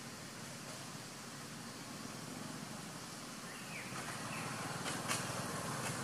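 Outdoor ambience: a steady hiss of background noise, with a few brief chirps and sharp clicks in the second half.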